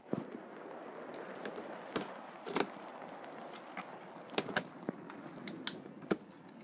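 Scissors snipping the ties that hold a toy in its box, with handling of the packaging: scattered sharp clicks and snips over steady rustling, with a loud click right at the start.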